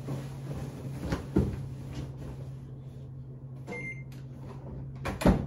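Clothes rustling as laundry is pushed into a top-loading washing machine, over a steady low hum. About four seconds in, a short high beep from the machine's control panel, then a loud knock near the end as the washer lid is shut.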